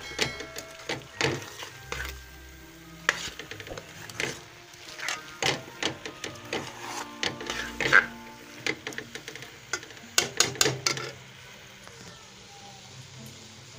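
Metal spoon stirring and scraping potato-and-egg curry around a pan, with irregular clinks and scrapes against the pan as the mixture fries. The stirring stops about eleven seconds in.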